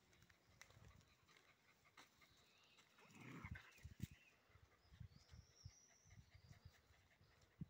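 Near silence, with faint low bumps and faint whines from puppies at play: one about three seconds in and a high thin one around five to six seconds.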